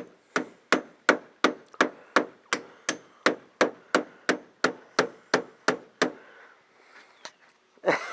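Hammer striking a screen hold-down strip to drive it back into place on a beam: a steady run of about eighteen sharp blows, roughly three a second, stopping about six seconds in.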